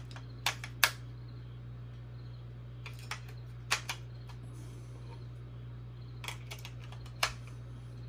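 AA batteries being pressed into the plastic battery holder of a small robot kit: a handful of short, sharp clicks spread irregularly, the loudest under a second in, over a steady low hum.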